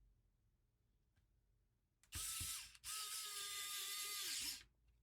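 Small electric screwdriver running in two short bursts about two seconds in, a brief one and then a longer one of about a second and a half, with a steady whine.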